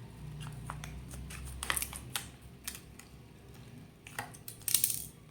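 Scissors cutting open a packet of descaling powder: a few sharp snips and crinkles of the packet, spaced out, the loudest near the end.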